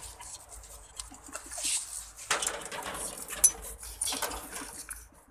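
A metal spoon held in the teeth knocking against a man's head once, a sharp clink about three and a half seconds in, among softer scuffling noise.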